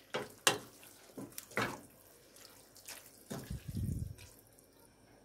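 Wooden spoon stirring a thick, chunky roasted eggplant and pepper sauce in a stainless steel pot: irregular short wet squelches and slaps, with a longer, fuller squelch a little before the end.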